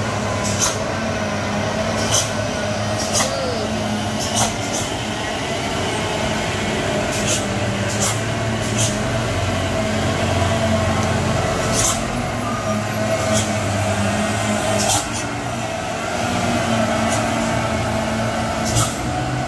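Diesel engine of a Mitsubishi tanker truck running steadily under load as it climbs a steep grade. Irregular sharp clicks come every second or two over the drone.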